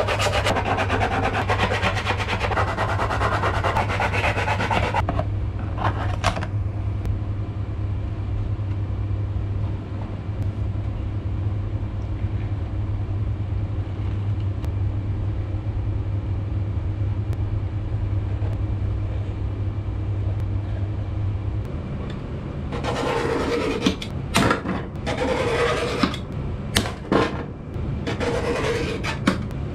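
Hand work with rubbing and scraping over a steady low hum. The hard plastic welding-mask shell is rubbed for the first few seconds. From about 23 seconds on, a hand tool scrapes in short, uneven strokes along a steel ruler on a metal plate.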